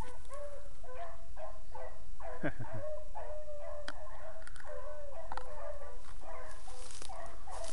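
A pack of beagles baying on a rabbit's trail: many short, overlapping hound calls in quick succession over a steady low rumble.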